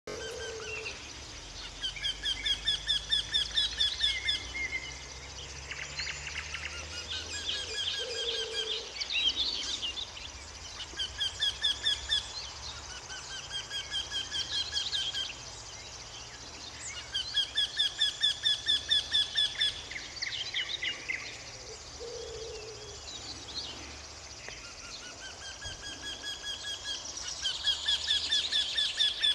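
Eurasian wryneck singing: runs of evenly repeated notes, about five a second, each run lasting a couple of seconds and given several times over. Shorter chirps of other songbirds fall between the runs.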